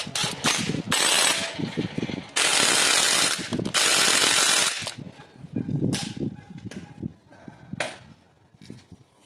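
A 19 mm socket on a wrench working the power steering pump pulley nut: three loud bursts of about a second each, then a few lighter clicks and knocks as the work settles.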